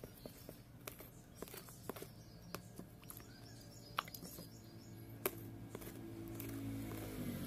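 Spoon stirring and folding thick slime in a plastic tub: irregular clicks and wet squelches as it knocks and scrapes against the tub. A low steady hum grows louder over the last couple of seconds.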